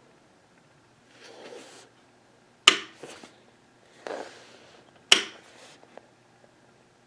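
Small metal toggle switches on a tube amplifier's front panel flipped by hand: two sharp clicks about two and a half seconds apart, with softer brushing noises of handling before each.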